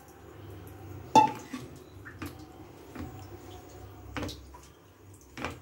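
Fish strips being dipped in thin flour batter in a steel bowl and coated in a plate of dry flour: a sharp clink against the metal about a second in, then four softer knocks and taps as the hand works between bowl and plate.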